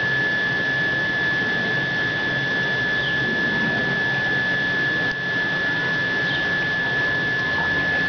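A steady mechanical hum with a constant high-pitched whine over it, dipping briefly about five seconds in.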